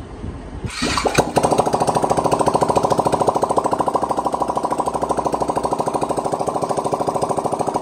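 Yamaha R15 V3's rebuilt single-cylinder four-stroke engine started on the starter, catching about a second in and then idling with a fast, even beat. It is the first test run after the rebuild, made to check that oil now reaches the cylinder head.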